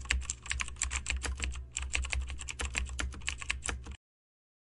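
Rapid computer-keyboard typing, about ten keystrokes a second over a low hum, used as a typing sound effect for text being typed on screen. It stops abruptly about four seconds in.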